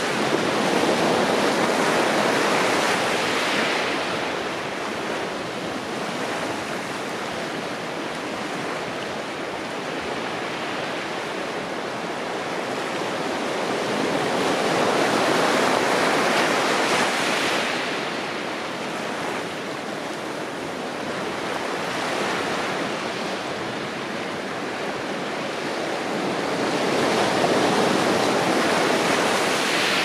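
Ocean surf washing onto a rocky shore: a steady rush of water that swells louder and eases back several times as waves come in.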